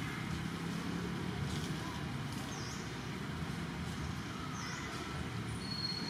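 Steady low rumble throughout, with two faint, short high chirps about two and a half seconds in and again two seconds later, and a thin high whistle near the end.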